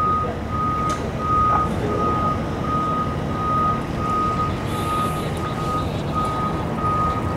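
A vehicle's reversing alarm beeping steadily at one pitch, about three beeps every two seconds, over continuous vehicle noise.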